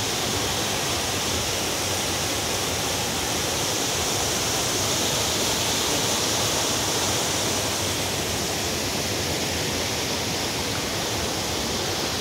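Waterfall rushing in a steady, unbroken roar of falling water.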